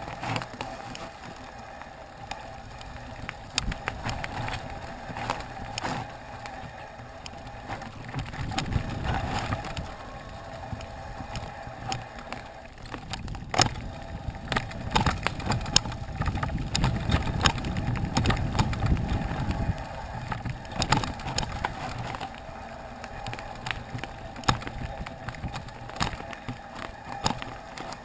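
Mountain bike rolling fast down a dirt forest trail: tyres on dirt and leaves, a steady buzz, and the bike rattling, with many sharp knocks over bumps and roots. The low rumbling grows heavier twice, about a third of the way in and again past the middle.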